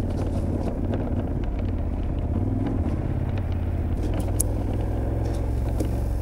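KTM 1290 Super Adventure R's V-twin engine running steadily as the motorcycle rides along, with a few faint ticks.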